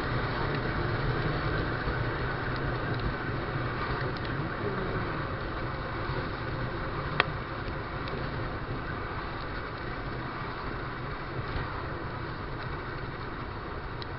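Honda NX200 single-cylinder motorcycle engine running steadily on the move, under a constant rush of wind and wet-road tyre noise. A single sharp click comes about seven seconds in.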